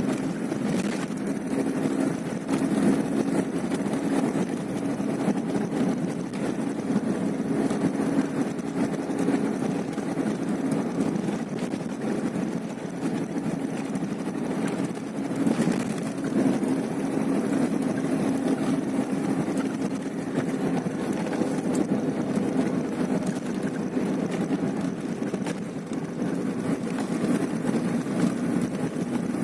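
A steady engine drone with an even low hum and no breaks, as of a running vehicle.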